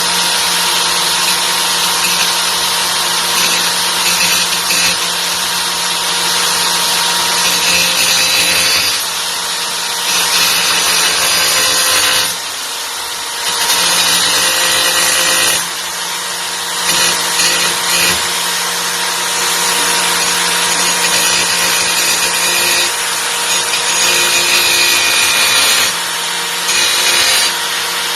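Titanium AG710 710 W angle grinder running under load against the work: a steady motor whine under a harsh disc noise. The sound drops briefly a few times, around ten, thirteen and sixteen seconds in.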